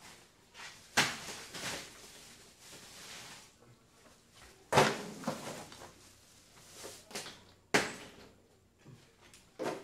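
Ice cubes being put in around the ice-cream container in the ice bucket: a few sharp knocks and clatters, the loudest about a second in, near five seconds, near eight seconds and just before the end, with smaller clinks between.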